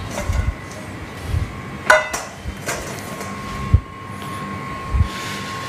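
Cookware being handled: a saucepan and spatula over a steel bowl and mesh strainer give a few short dull knocks about a second apart and one sharp metal clink about two seconds in, as the panna cotta cream is readied for straining.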